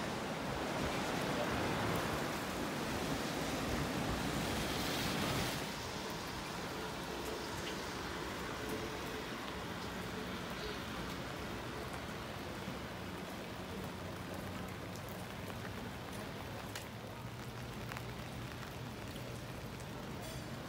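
Rushing river water for the first five seconds or so. It cuts off suddenly to steady rain falling on wet pavement, with scattered drips ticking and a faint low hum underneath.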